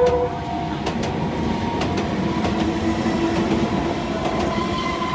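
An Enoshima Electric Railway (Enoden) train running through a level crossing, its wheels clattering on the rails, while the crossing's warning bells ring steadily.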